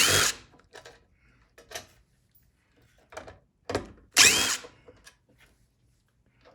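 Cordless driver with a Torx bit running in short spurts, once at the start and again about four seconds in, each with a brief rising whine, backing sheet-metal screws out of a plastic blower housing. Light clicks of handling come between the spurts.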